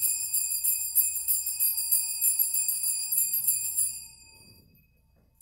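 Altar (sanctus) bells shaken in a continuous jingling ring for the elevation of the chalice at the consecration, fading out about four seconds in. A single short ring sounds right at the end.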